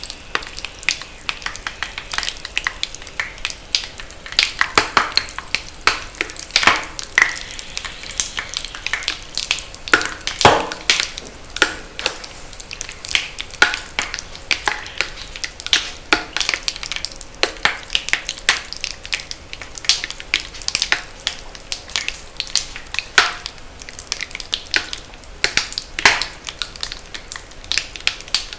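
Reformed magnesium carbonate chalk, made from the pure powder with water, being crushed, crackling and popping in a dense run of irregular sharp snaps.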